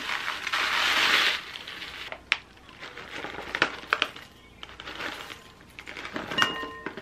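Rolled oats pouring from a paper bag into a glass mixing bowl, a dry rushing hiss for about a second, then sliced almonds tipped in with light scattered ticks and packet crinkling. A few short ringing tones come in near the end.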